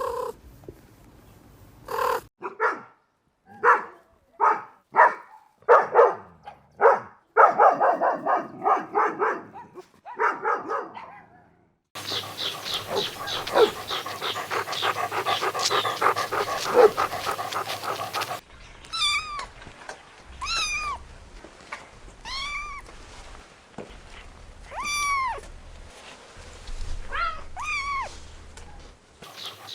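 Edited run of dog and cat sounds: short repeated dog calls for about twelve seconds, a dense busy stretch of animal calls, then a cat meowing about six times, each meow rising and falling in pitch. The stretches switch abruptly.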